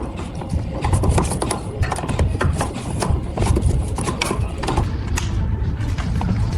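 Scraping and rubbing with many irregular clicks and knocks as a car part is handled and fitted into place, over a low steady rumble.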